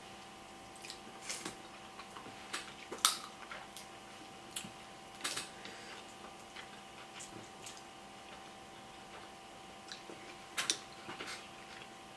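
Crab leg and shrimp shells being cracked and picked apart by hand, with wet chewing and squishing of the meat: scattered sharp snaps and clicks, the loudest about three seconds in, over a faint steady hum.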